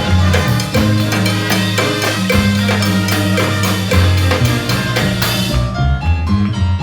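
Salsa band playing, with drums, wood-block knocks and a bass line keeping a steady rhythm; the high percussion drops out briefly near the end before the full band returns.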